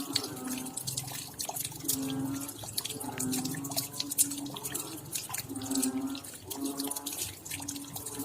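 Raindrops dripping: a dense, uneven run of sharp little drop hits over a faint low hum. Short low pitched notes also recur about once a second.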